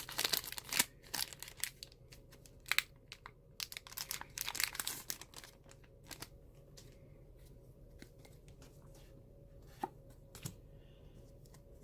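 Packaging of a Pokémon trading card blister pack being torn open, with a quick run of sharp rips and crinkling over the first five seconds or so, then quieter handling with a couple of small clicks.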